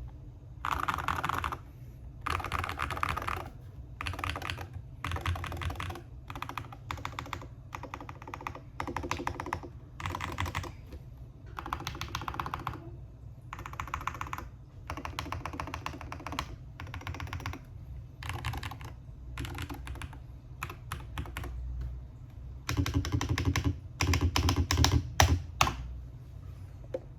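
Typing on a stock, unmodified Akko ray68 mechanical keyboard: quick runs of keystrokes in short bursts with brief pauses between them. The burst near the end is the fastest and loudest.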